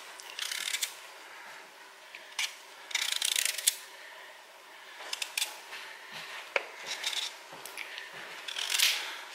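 Hand peeler scraping the skin off a raw sweet potato in a series of short, irregular strokes.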